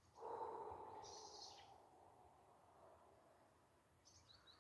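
Near silence outdoors, with a few faint, short, high bird chirps near the end. Just after the start, a faint sound of about a second and a half fades away.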